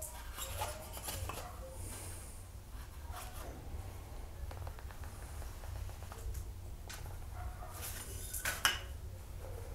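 Light clinks and taps of metal hand tools being handled against wood on a workbench, scattered and irregular, with a louder click near the end.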